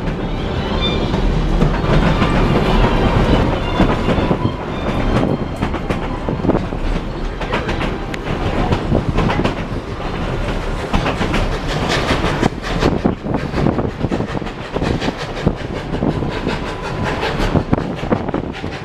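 Passenger train rolling along, heard from aboard, its wheels clacking over the rail joints with a steady run of sharp clicks and knocks.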